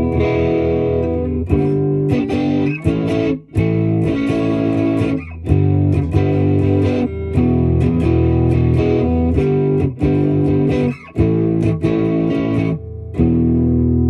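Electric guitar playing held chords that change every second or two, with short breaks between them. The Wampler Tumnus Deluxe overdrive is switched off (its LED unlit), so the guitar is heard without the pedal's drive.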